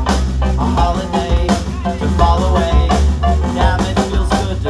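Indie pop band playing live, with a drum kit keeping an upbeat, steady beat over bass and melody.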